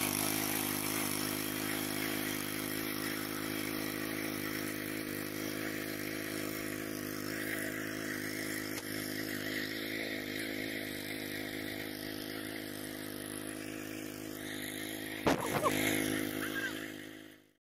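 S Raja walk-behind power tiller's engine running steadily under load as its rotary blades churn stubble-covered paddy soil, growing slowly fainter as the machine moves away. About fifteen seconds in there is a brief sharp sound, the loudest moment, and the sound cuts off just before the end.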